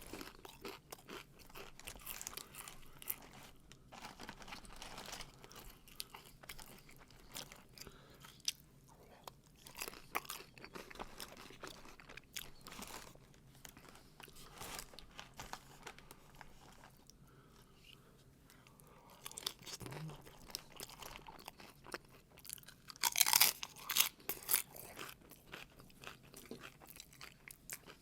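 Close-miked chewing and crunching of food in a person's mouth, with wet mouth smacks. There is a louder burst of crunching about 23 seconds in.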